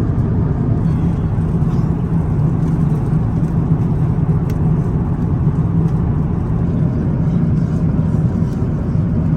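Steady low rumble of engine and airflow noise inside the cabin of an Airbus A350-900 airliner.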